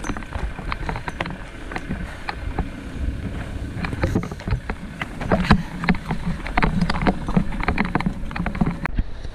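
Irregular crunching steps in fresh snow, several crisp crackles a second, over a constant low rumble of wind on the microphone.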